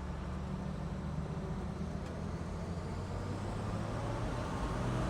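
Engine of a 1942 GMC amphibious Duck (DUKW) tour vehicle running steadily under way, a low hum whose pitch shifts a little about four and a half seconds in.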